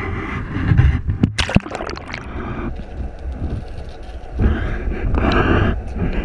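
Water splashing and gurgling against a camera as it is dipped beneath the sea surface, with a few sharp splashes about a second in, then a muffled, steady underwater rumble.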